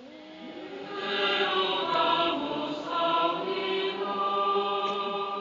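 Choir and congregation singing a short chanted response to a prayer intention. Several voices hold steady sung notes that swell about a second in and die away near the end.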